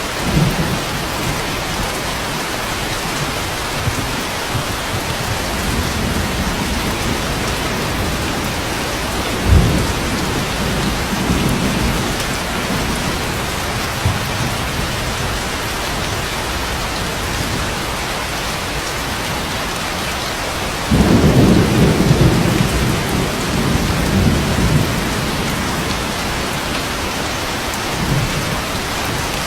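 Steady rain with thunder rolling over it: a sudden low crack about a third of the way in, a longer, louder rumble lasting several seconds past two-thirds of the way, and fainter rumbles between.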